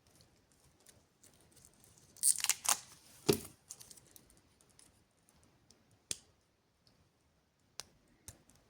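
Watch packaging being handled and opened: a short burst of rustling and a knock about two to three seconds in, then a few single light clicks.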